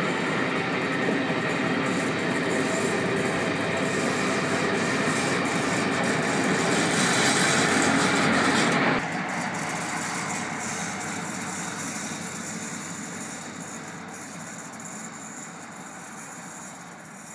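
Passenger train passing close, its carriages' wheels running on the rails. The sound builds to a peak about eight seconds in as Class 55 Deltic D9009, with its two-stroke Napier Deltic engines running, comes level. Just after that it drops suddenly and then fades steadily as the train draws away.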